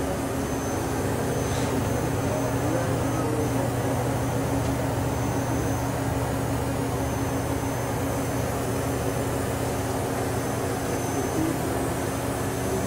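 Hurco BMC-20 CNC vertical machining center running its program cycle: a steady mechanical hum from the spindle and drives, with a faint high-pitched whine over it.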